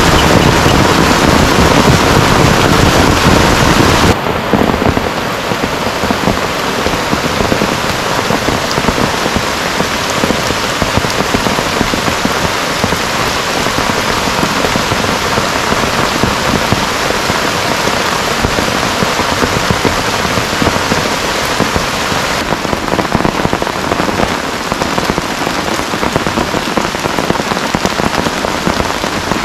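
Heavy rain falling on a surface, a dense steady hiss. For about the first four seconds it is louder and deeper, then it drops abruptly to a lighter, steadier downpour, with another sudden shift near the end.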